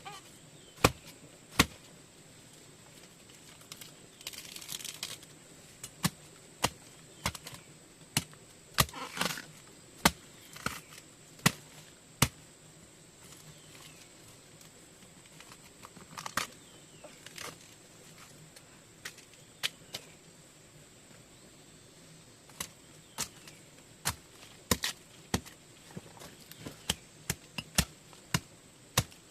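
Sharp chopping strikes of a hand tool, irregular and roughly once a second, pausing twice, with a short rustle about four seconds in.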